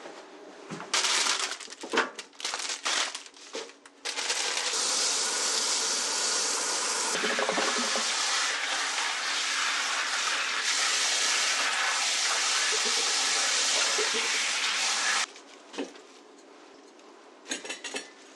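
A few knocks and clatters, then water running steadily from a tap for about eleven seconds before it is shut off abruptly.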